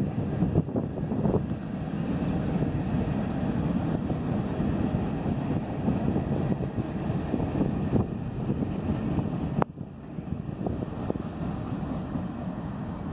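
CN freight train cars rolling past, a steady rumble of wheels on the rails. A sharp click comes about ten seconds in, and the rumble is a little quieter after it.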